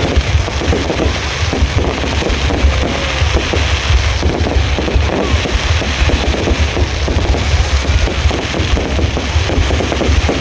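A dense, unbroken barrage of fireworks: many overlapping bangs and crackles over a heavy low rumble, with no pause between bursts.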